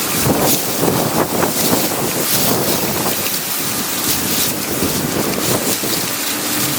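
Strong, gusty storm wind buffeting the microphone, a loud, continuous rushing noise.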